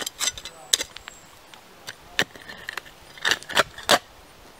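Schrade folding shovel blade stabbing and scraping into dirt: a run of irregular short crunches and scrapes, the loudest a cluster about three to four seconds in.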